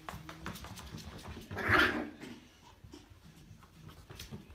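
A small dog makes one short vocal sound about two seconds in, over light clicking and tapping on a hardwood floor.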